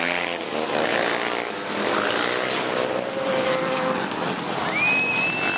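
A pack of racing three-wheelers (ATCs) accelerating hard past the camera off the start, several engines running together at high revs, their pitches rising and falling. A high steady engine note holds near the end.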